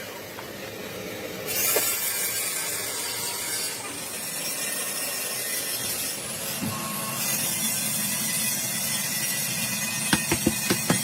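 Hand-tool work in a workshop: a steady scraping hiss, then a quick run of light, sharp taps near the end.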